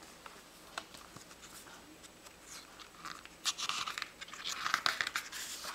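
Pages of a book being handled and flipped. A few faint paper clicks come first, then about halfway through a quick run of page-turning with loud crackling and rustling of paper.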